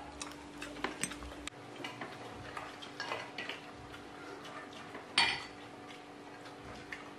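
Plates, bowls and spoons clinking and scraping lightly at a meal table as people eat, in scattered small knocks, with one louder sharp clink about five seconds in. A faint steady hum sits underneath.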